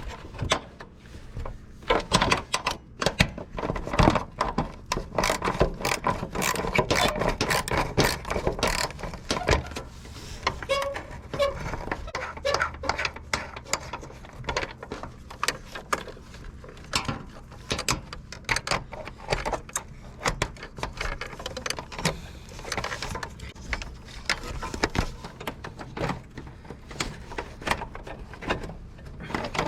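Hand tools and metal parts clicking, clattering and knocking in quick irregular strokes while a relay is mounted on the tractor, busiest and loudest in the first third.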